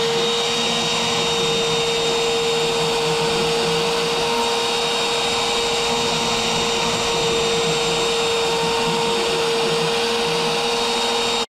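NextWave Piranha CNC router's spindle running with a steady high whine and hiss as its end mill cuts a pocket in PVC trim board.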